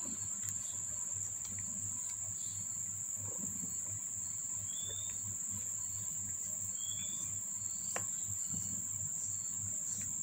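A steady high-pitched whine with a low hum beneath it and a few faint short chirps.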